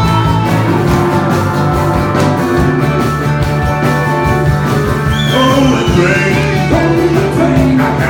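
Rock-and-roll band music with guitar and a steady beat; a gliding sung or lead line comes in about five seconds in.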